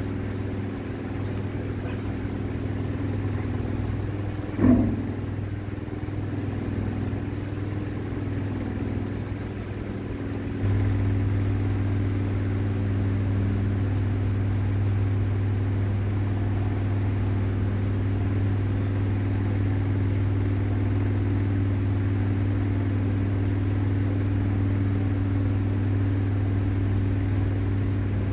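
A steady low machine hum that steps up louder about ten seconds in and then holds, with one short sound about five seconds in.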